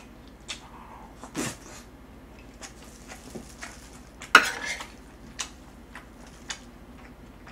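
A metal spoon and tongs clinking and scraping against a black skillet of fried rice: scattered light clicks, with one louder clank about four and a half seconds in.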